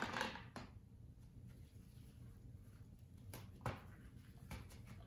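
Ball mill jar lid being fitted and turned by hand: a few scattered faint clicks and knocks, the loudest a little over three and a half seconds in, over a low room hum.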